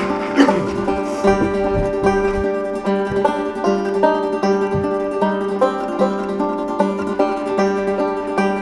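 Country music playing: an instrumental stretch with quick plucked-string picking in a steady rhythm, with no singing.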